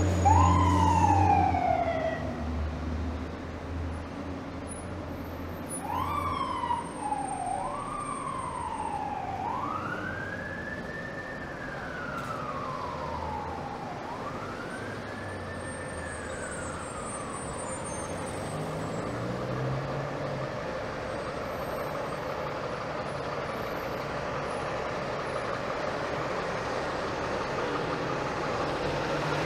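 Fire truck siren from a hazardous materials unit. It gives a falling sweep, then two quick up-and-down sweeps, then two slow rising-and-falling wails that fade out after about 18 seconds, leaving steady street traffic noise.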